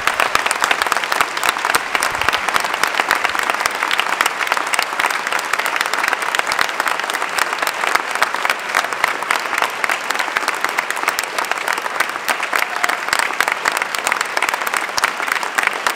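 A hall audience applauding steadily, many hands clapping in a dense, even patter.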